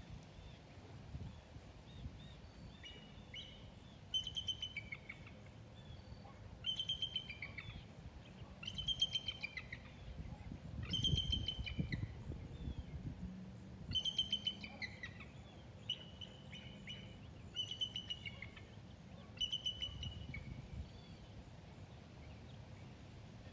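Bald eagle calling from a perch: short bursts of rapid, high-pitched piping chirps, repeated every two to three seconds.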